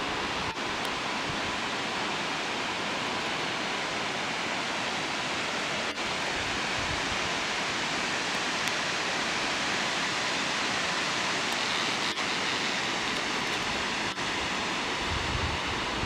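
Muldalsfossen waterfall giving a steady, even rush of falling water as it spills down a cliff face, broken by a few split-second dips. Near the end, low wind rumble buffets the microphone.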